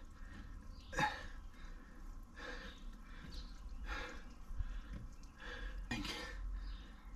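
A man's heavy breaths and strained exhalations, four of them about a second and a half apart, as he struggles to hold a hose fitting onto a water tank's outlet against the outflowing water.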